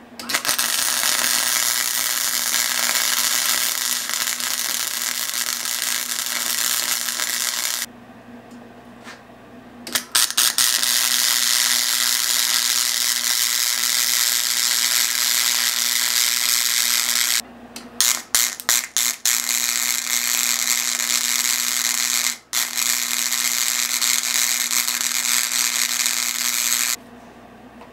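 Clarke 180EN MIG welder's arc crackling and hissing as beads are laid on 3/16" steel plate at varied power and wire-speed settings. It runs in long steady stretches with a two-second break about eight seconds in. Around seventeen seconds it stutters in short sputters, then runs steadily again.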